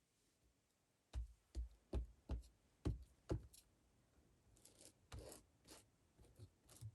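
Light knocks and clicks of small craft tools being picked up and set down on a work table, six or so in quick succession, followed by softer rubbing and a few more faint clicks near the end.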